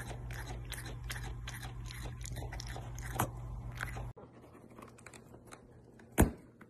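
A cat chewing close to the microphone: a fast run of crunching clicks, several a second, over a steady low hum, which cuts off about four seconds in. Near the end there is a single sharp knock.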